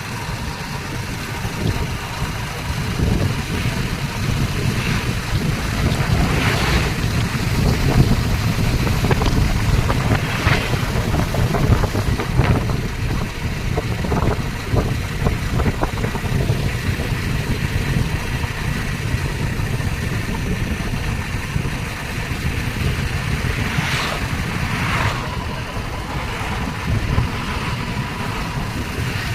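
Vehicles moving through floodwater on a flooded road: a steady low rumble of engines and water.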